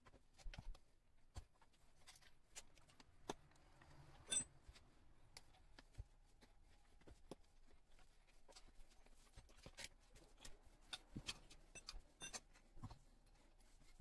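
Sparse clicks, taps and knocks of hands and a small metal lever working a Xiaomi M365 scooter tyre on its wheel rim, the sharpest knock about four seconds in.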